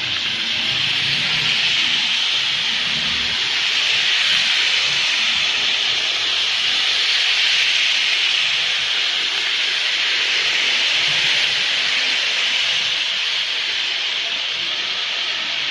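Steady hissing street ambience of a rain-wet city road, with traffic passing on the wet asphalt.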